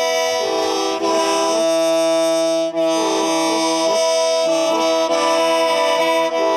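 Hmong khen, a free-reed mouth organ of bamboo pipes, playing several notes together over one steady held drone note, the chord changing every second or two.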